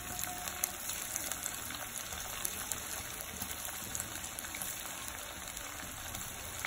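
Small gram-flour and rice-flour batter fritters deep-frying in hot oil in a kadai: a steady sizzle with many fine crackles.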